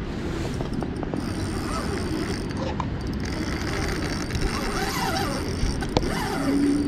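Fishing reel being cranked steadily: a continuous mechanical gear whir as the line is wound in.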